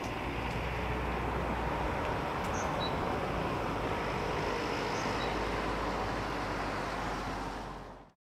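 Steady outdoor street ambience, an even background hum and hiss, with a few short high chirps; it fades out near the end.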